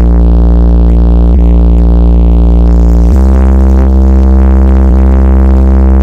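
Electronic dance music played very loud through a street-carnival sound system, with heavy sustained bass chords that shift to a new chord about every second and a half to two seconds.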